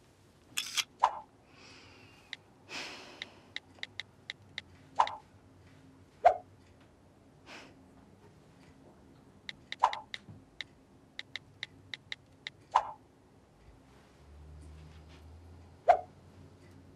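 Smartphone sounds during texting: a sharp camera-shutter click near the start, runs of quick keyboard tap clicks, and short message alert pops every few seconds.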